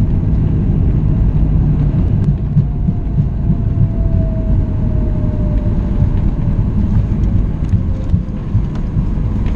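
Loud, steady rumble inside the cabin of a Boeing 737 MAX 8 in motion. A faint tone slowly falls in pitch through the middle of it.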